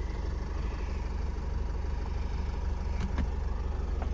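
Renault M9R 2.0 dCi four-cylinder diesel in a Nissan Qashqai idling steadily, heard from inside the cabin. Two light clicks come about three seconds in.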